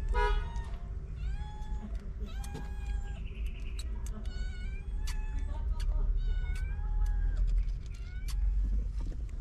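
Newborn kittens mewing while they nurse: many short, high, thin cries that rise and fall, with a louder call right at the start, over a steady low rumble.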